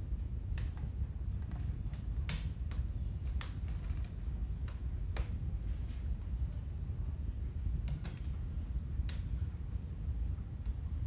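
Irregular clicks and taps, about a dozen over several seconds, from the parts of an old Arno electric fan being handled and the grille fitted into place, over a steady low background rumble.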